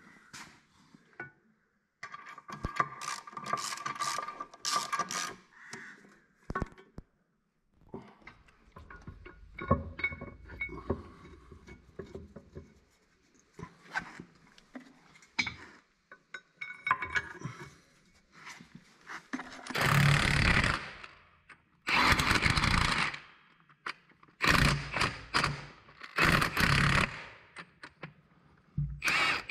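Cordless impact wrench running in short bursts of about a second each, about five times in the last third, driving the wheel nuts onto a tractor wheel hub. Before that, scattered knocks and metal clatter as the wheel is handled onto the hub.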